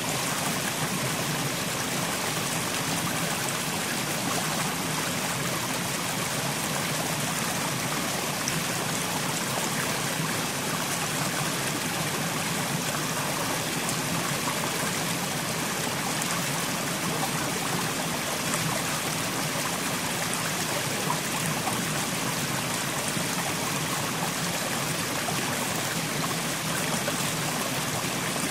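Mountain stream flowing steadily over rocks, a continuous rushing and trickling of water.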